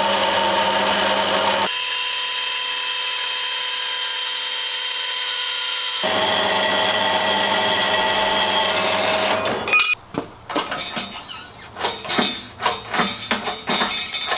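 Horizontal metal-cutting bandsaw running and cutting through 50 by 6 mm aluminium flat bar: a steady machine whine with several held tones, its tone shifting for a few seconds near the start. About ten seconds in it stops, and irregular knocks and clicks follow.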